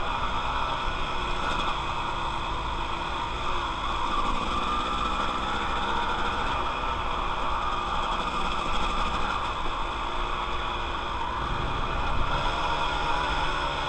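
Dirt bike engine running at a steady pace while the bike is ridden, with wind noise over the helmet camera mixed in.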